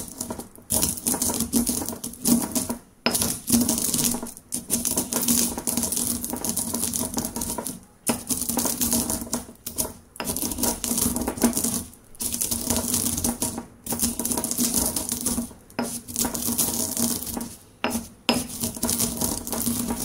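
Stone pestle crushing whole roasted coffee beans in a stone mortar: continuous crunching and rattling of beans against stone, broken by short pauses every couple of seconds. This is the gentle first stage of grinding, with the beans still mostly whole.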